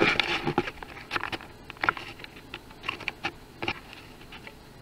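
Scattered light clicks and taps at an irregular pace, busiest in the first half-second and thinning out toward the end.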